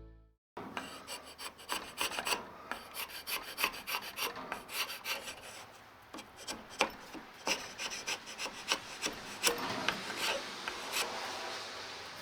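Wooden axe handle being shaved down by hand, a tool scraping across the wood in quick, uneven strokes, several a second.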